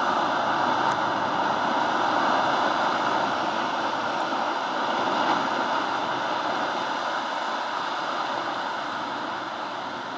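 Large ice avalanche: a mass of ice blocks and debris pouring down a glacier's debris fan, making a steady rushing noise that slowly fades toward the end.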